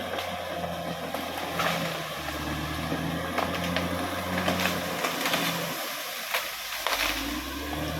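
Caterpillar D6R XL bulldozer's diesel engine running under work, with scattered sharp cracks and clanks. Near six seconds the engine note drops away briefly, then comes back lower.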